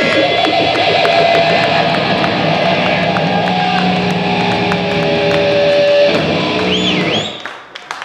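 Live heavy metal band playing: distorted electric guitars and bass over a drum kit. The song stops about seven seconds in.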